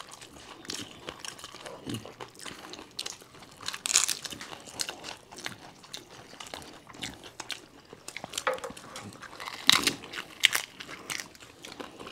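Crisp panipuri (puchka) shells crunching and being chewed: scattered crackly bites and chewing, loudest about four seconds in and again near ten seconds.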